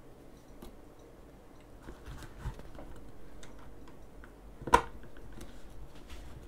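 Small scattered clicks and taps of hand tools and plastic RC-car parts being handled, with one sharper, louder click about three-quarters of the way in.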